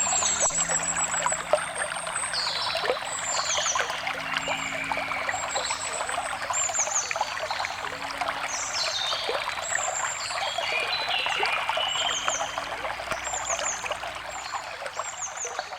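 Water trickling and splashing steadily, with forest birds singing over it: many short, high, down-slurred chirps repeated throughout.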